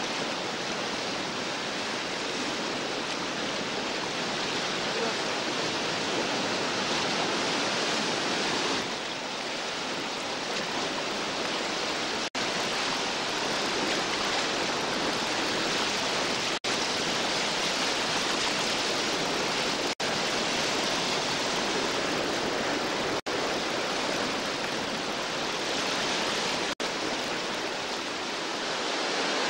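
Rushing whitewater of a mountain river rapid: a steady, even rush of water, broken by a few momentary dropouts where the recording cuts.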